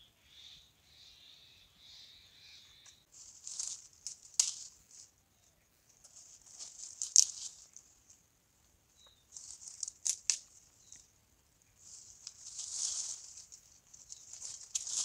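Small fire of dry twigs crackling and rustling as it is lit and fed, in irregular bursts with a few sharp snaps.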